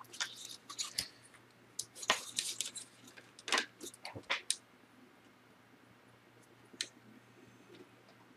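Clicks and light knocks of a laptop's plastic bottom case and motherboard being handled, a quick flurry over the first four and a half seconds, then a single click near seven seconds.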